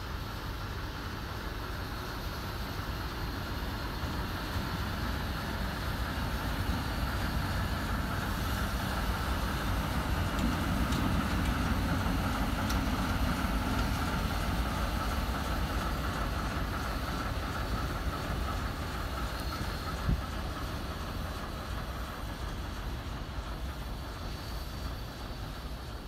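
ChME3 shunting diesel locomotive running under its six-cylinder diesel engine as it rolls past. Its sound grows louder to a peak about halfway through as it draws level, then fades as it moves away. There is a single short knock about three-quarters of the way through.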